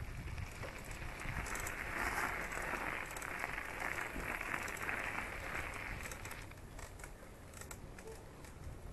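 Bicycle tyres crunching steadily over a sandy gravel track, with a low rumble of wind on the microphone. The crunching dies away about two thirds of the way through as the bike rolls onto smooth stone paving.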